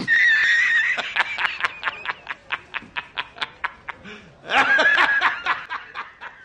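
A man laughing hard. A high-pitched squeal of laughter comes first, then quick rhythmic gasps of laughter about four a second that fade, and a second loud outburst about four and a half seconds in that trails off into more gasps.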